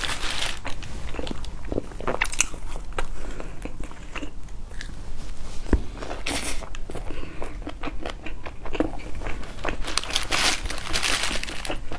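Close-miked bites and chewing of bread and crusty pastries on a clip-on microphone: repeated sharp crunches and crackles of crust between mouthfuls of chewing.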